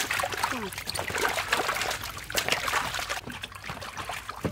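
Water splashing and sloshing in a large metal basin as several hands rub and rinse peeled banana flowers, with many small wet clicks and a single knock near the end.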